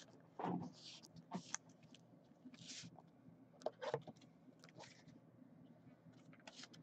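Faint rustling and crinkling of a clear plastic penny sleeve as a trading card is slid into it and handled, with a few soft clicks.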